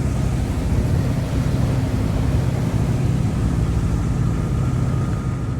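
Sabre 27 yacht's inboard engine idling steadily in neutral, a low, even drone.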